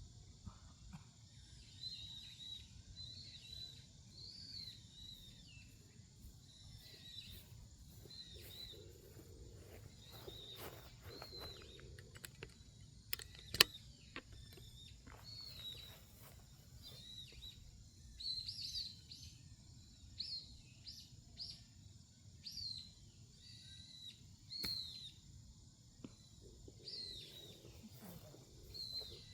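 Small birds chirping again and again in short high calls, about one a second, over a faint steady low rumble. A single sharp click sounds about halfway through.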